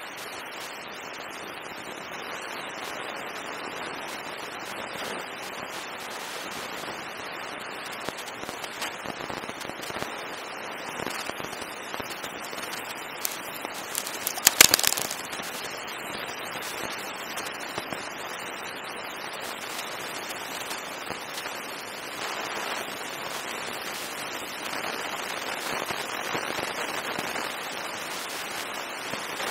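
Steady hiss with scattered faint crackles, and about halfway through a quick cluster of knocks and clicks as a wolf noses and mouths the camera.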